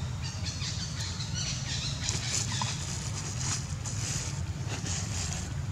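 Outdoor background sound: a steady low rumble with faint rustles and a few light clicks.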